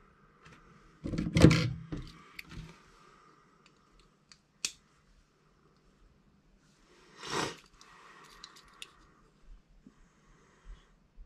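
Handling noises from a small plastic RC car chassis being picked up off a workbench and fiddled with: a loud knock about a second in, a sharp click a few seconds later, another knock-like rustle near the middle, and scattered small clicks.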